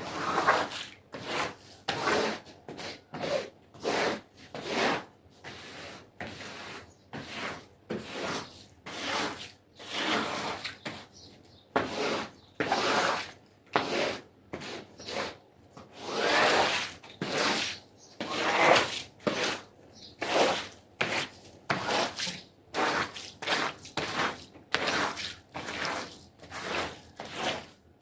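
Repeated hand strokes of a cleaning tool working over a wet carpet, about one to two strokes a second, each a short noisy swish.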